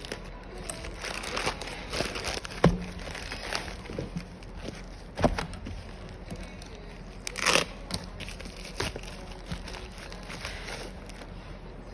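Product packaging being handled and opened: crinkling and rustling of wrapping, with a few sharp knocks and a longer rustling burst about seven and a half seconds in.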